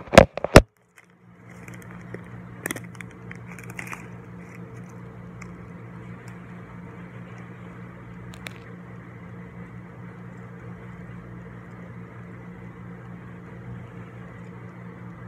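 Two loud knocks of the phone being handled at the very start, then a steady low hum with a faint hiss. A few brief crackles and clicks from the plastic candy wrapper being handled come about three to four seconds in and again near the middle.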